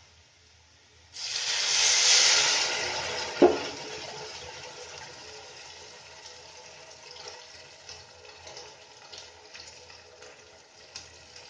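Thin coconut-and-water mix poured into hot oil in a stainless steel kadai: a sudden loud hiss and splash about a second in, which slowly fades to a soft sizzle. One sharp metal clink comes about three and a half seconds in.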